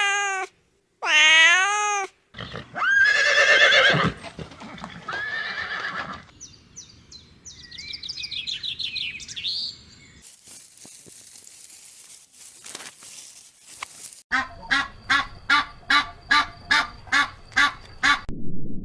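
Different farm and pet animal calls one after another: a cat meowing near the start, a horse whinnying, quick high bird chirping, then a rapid series of short calls, about three a second, near the end.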